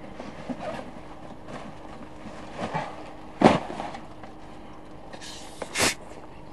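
Rustling and handling noises of people shifting about inside a small tent, with two louder brief swishes about three and a half and six seconds in.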